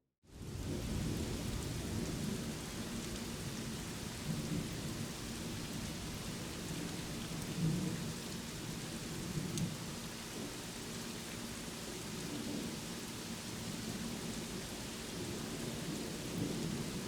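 Steady rain with low rumbling thunder that swells and ebbs, starting abruptly.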